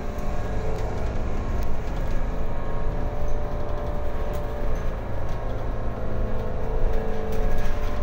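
Interior of a Mercedes-Benz OC500LE city bus under way: steady engine drone and road rumble, with a few short sharp rattles from the cabin.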